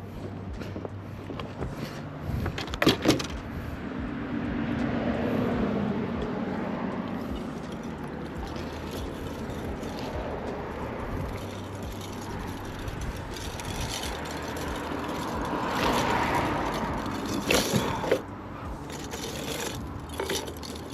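Outdoor rushing noise that swells and fades twice, like passing traffic, with a few sharp clicks and knocks.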